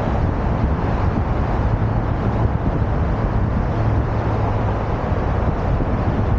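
Steady wind noise buffeting the microphone while riding a Onewheel, with road traffic passing alongside.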